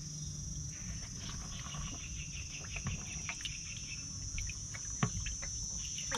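Steady high-pitched insect chorus, with a run of quick chirps for about three seconds starting a second in. Light splashes and knocks of water as catfish thrash in a plastic tub and a hand reaches in, the sharpest about five seconds in.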